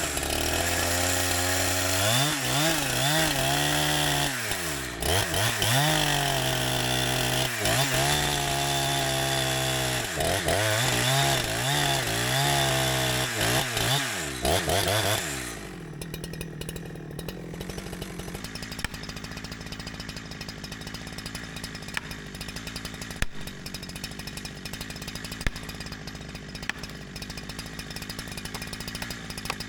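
Holzfforma 372xp chainsaw (a clone of the Husqvarna 372XP two-stroke) running freshly started, revved up and down about eight times to warm up. About halfway through it drops back to a steady idle. The saw is still being broken in and is tuned rich.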